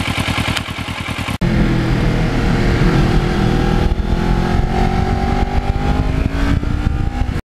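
Kawasaki Ninja motorcycle engine idling with an even, steady pulse, then, after an abrupt change at about a second and a half, the engine heard from the rider's seat while riding, with wind rush and its pitch rising slowly as the bike gathers speed. The sound cuts off suddenly just before the end.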